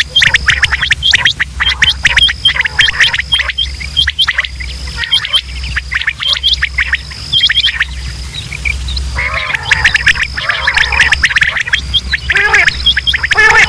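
Many quail calling at once, short sharp calls repeated rapidly and overlapping into a dense chorus that thins briefly about two-thirds of the way through. A steady high tone and a low hum run underneath.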